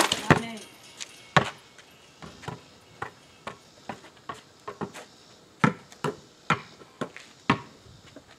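A basketball striking the driveway hoop with a loud clang and a short ringing rattle. It then bounces and is dribbled on asphalt, a string of sharp slaps about two a second.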